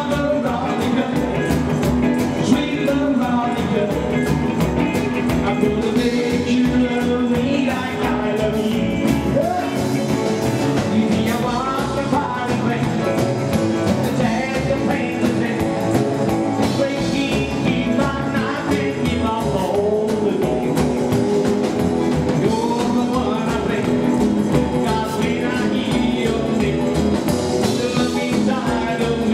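Live 1950s-style rock 'n' roll band playing, with a male singer over acoustic guitar, upright double bass and drums.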